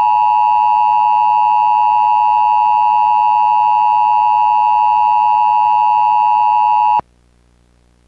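Emergency Alert System attention signal: two steady tones sounding together in one continuous blare, cutting off sharply about seven seconds in and leaving only a faint hum.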